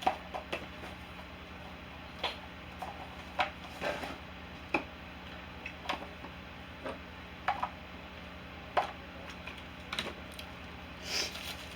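Irregular light clicks and taps of small cosmetic items and packaging being handled and put into a container, over a steady low hum.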